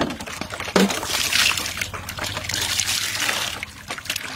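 Hands scrubbing and squeezing raw pork in water in a metal basin: wet squelching and splashing. The sound starts with a sharp slap about a second in, is busiest until about three and a half seconds, then eases off.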